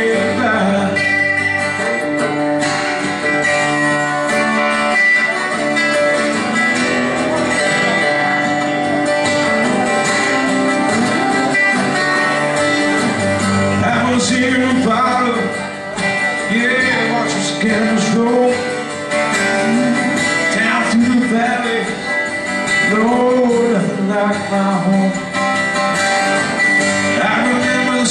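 Two acoustic guitars playing a country song's instrumental passage, strummed chords under a picked melody, with no lyrics sung.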